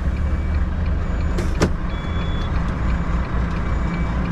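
Volvo lorry's diesel engine running steadily, heard from inside the cab, with a single sharp click about a second and a half in.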